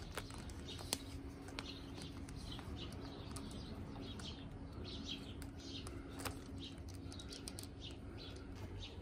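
Faint outdoor ambience: small birds chirping now and then in the background over a low steady hum that stops near the end, with a few light clicks from the leather harness straps and buckles being wrapped around the sulky's metal shaft.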